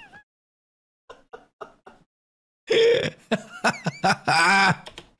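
A man laughing: a few faint held-back snickers, then loud bursts of laughter from about halfway through.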